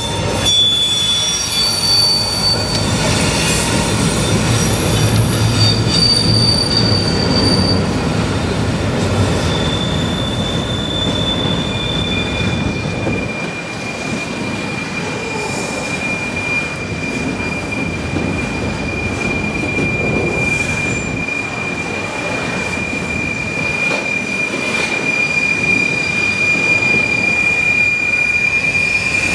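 CSX freight train passing: the diesel locomotives' engines rumble for the first several seconds, then a string of autorack cars rolls by with the wheels squealing in high, thin tones, settling into one long steady squeal through the second half.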